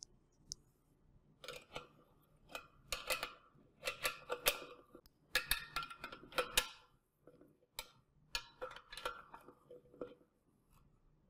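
Metal wrench tightening the M8 nuts on a pole-mount bracket strap: bursts of quick metallic clicks and scrapes, heaviest in the middle, as the nuts are turned down.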